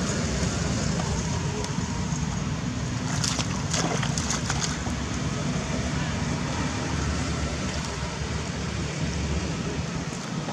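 Water splashing as long-tailed macaques wade and swim in a shallow muddy pond, with a short run of splashes about three to four and a half seconds in, over a steady low rumble.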